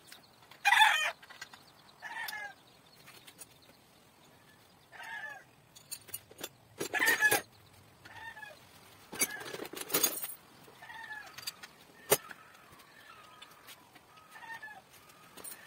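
Chickens clucking in short repeated calls, with a few louder, harsher calls among them. A single sharp click sounds about twelve seconds in.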